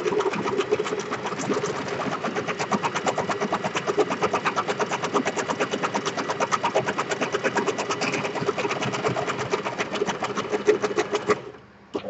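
Electric domestic sewing machine stitching steadily at a fast, even rate through a card bookmark, then stopping about eleven seconds in, with a single click near the end.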